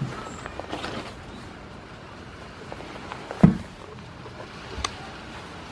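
A single dull thump about three and a half seconds in, over faint rustling and handling noise.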